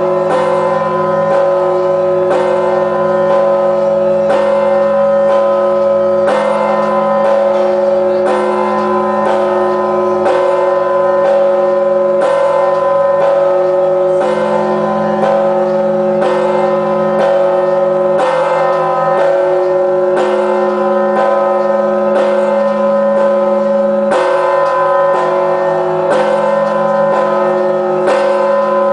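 A very large 7,150 kg church bell struck steadily, about one stroke a second (58 strikes a minute). Each stroke rings out over the long sustained hum of the strokes before it.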